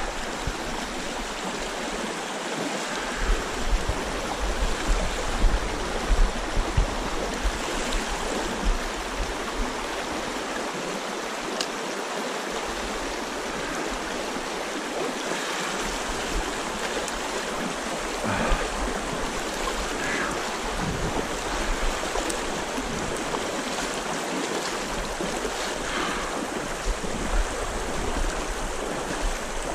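Shallow trout stream running fast over a rocky riffle: a steady rush and burble of water, with a low rumble underneath.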